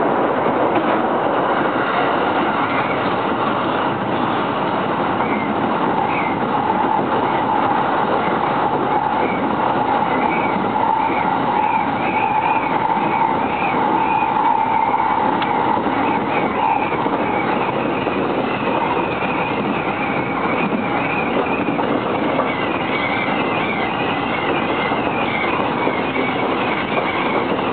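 Electric commuter train running at speed, heard from inside the carriage: a steady rumble and hiss of wheels on rails. A steady whine sounds from about six to seventeen seconds in, and a faint wavering high tone from about six seconds on.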